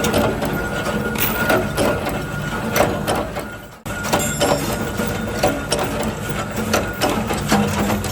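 Workshop machinery running, a steady hum with many irregular clicks and knocks. It fades out and comes back abruptly a little under four seconds in.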